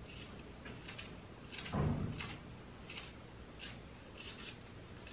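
Carving knife shaving wood in short strokes, about one every two-thirds of a second, with a louder low thump about two seconds in.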